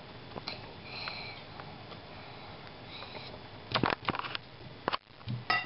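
Wire whisk stirring crêpe batter in a mixing bowl: soft scraping, then a quick cluster of sharp clicks and knocks a little under four seconds in and one more about a second later as the whisk hits the bowl.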